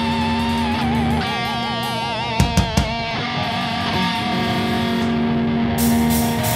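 Live heavy metal band: distorted electric guitars hold long sustained notes, one wavering up and down in pitch. A few sharp drum hits come about two and a half seconds in, and cymbals crash near the end.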